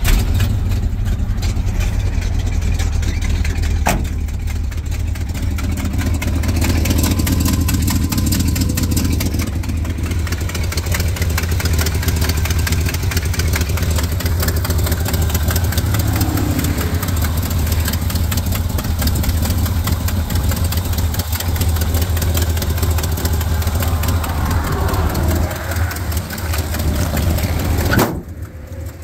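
1975 Chevrolet C65 truck engine starting up and running at a steady idle with a deep, even hum. The engine sound drops away sharply about a second before the end.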